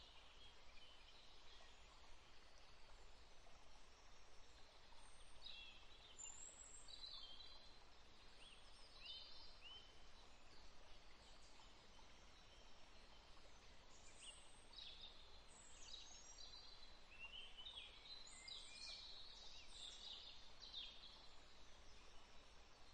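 Near silence, with faint, scattered bird chirps in the background.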